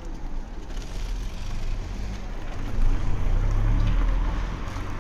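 A motor vehicle passing close by on the street: a low engine and road rumble that builds and is loudest about three to four seconds in.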